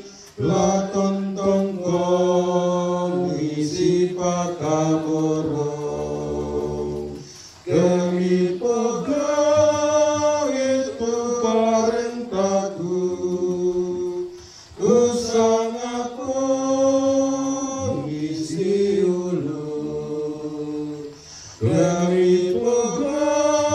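A solo voice chanting a Gospel reading in the Toraja language on sustained sung notes, in long phrases with brief breaks about every seven seconds.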